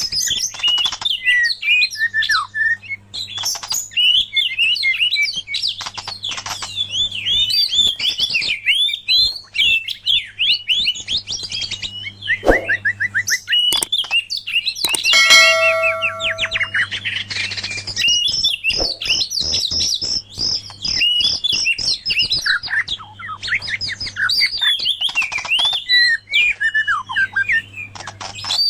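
White-rumped shama and oriental magpie-robin singing: a continuous stream of fast, varied, high whistled phrases and chirps, with a harsh buzzy call about halfway through. A steady low hum runs underneath.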